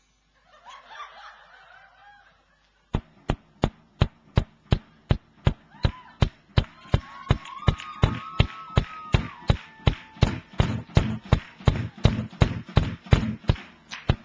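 Voices calling out, then about three seconds in a drum kit starts a steady beat of sharp, evenly spaced hits, about three a second, picking up slightly near the end. A long high held call sounds over the beat for a few seconds in the middle.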